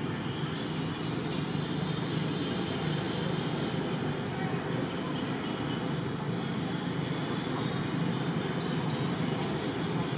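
Steady background noise, an even low rumble with hiss above it and no distinct events.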